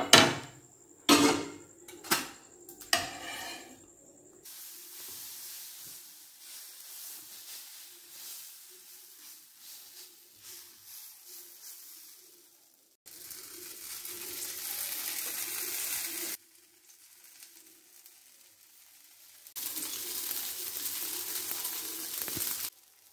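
A few loud metal clanks of a steel spoon and pan near the start, then chickpea-and-rice adai batter sizzling on a hot oiled dosa tawa as it is spread and cooks. The sizzle breaks off and comes back abruptly several times, louder in two stretches.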